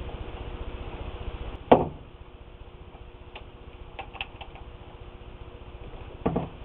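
Printer mechanism working as it readies a test page: a low steady running that stops with a loud clunk about two seconds in, then a few light clicks and another clunk near the end.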